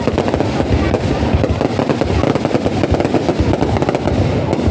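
Fireworks display: a continuous barrage of overlapping bangs and crackles.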